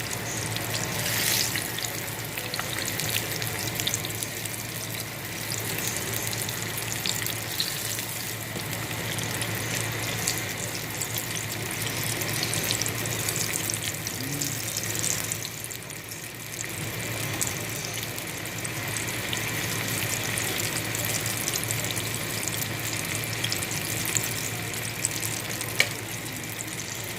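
Green tomato slices frying in hot oil in a pan: a steady crackling sizzle, easing briefly about two-thirds of the way through, with a couple of sharp pops near the end.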